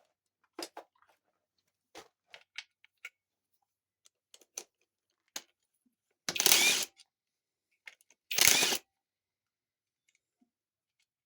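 Hand-tool work on a TH400 transmission's valve body bolts: scattered light clicks and taps of metal parts, with two louder half-second rasping noises about six and eight seconds in.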